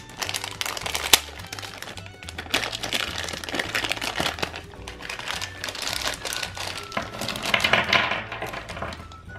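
Thin clear plastic bag crinkling and rustling as small plastic toy parts are unwrapped and tipped out, the parts clicking against one another and the table, with one sharp click about a second in. Background music plays underneath.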